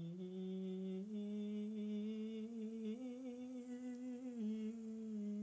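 A man singing a vocal scale exercise on the vowel E with his tongue stuck out: held notes that step up in pitch and then back down. It is sung with a tension he feels in his throat and finds difficult.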